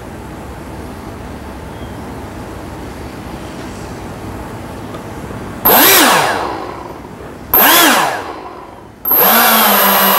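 Twin electric ducted fans on an SR-71 model jet, driven by replacement ESCs, spinning up: two short throttle blips about six and seven and a half seconds in, each rising in pitch and winding down, then a steady whine from about nine seconds on as both ESCs run the fans in sync.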